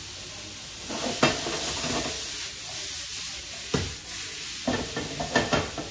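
Onions and mushrooms sautéing in olive oil in a small skillet, sizzling as they are stirred and tossed with a utensil. The sizzle grows louder about a second in, and there are a few sharp knocks and scrapes of the utensil against the pan.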